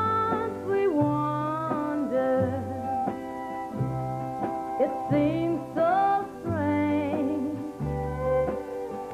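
A woman singing a country song live with a band, its bass stepping from note to note beneath her held, sliding vocal lines.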